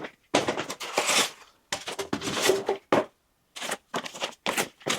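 Packing material being pulled and torn out of a furniture box: a run of irregular tearing, rustling and scraping bursts with short gaps between them.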